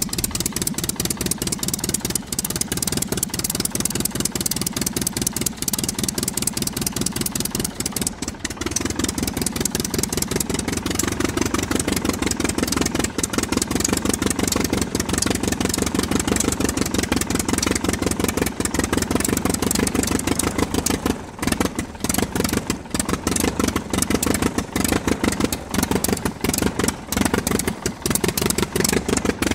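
Piston engine sound effect laid over a CAD animation: the engine runs steadily with rapid, even firing pulses, a little louder from about eight seconds in.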